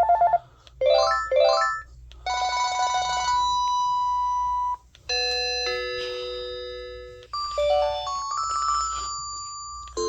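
Panasonic KX-TGLA40 cordless phone handset previewing its built-in ringtones one after another, each cut off after a second or two. In turn come the end of a trilling electronic ring, two quick rising runs, a buzzing trill that ends in a held beep, a held electronic chord, and a stepped little melody.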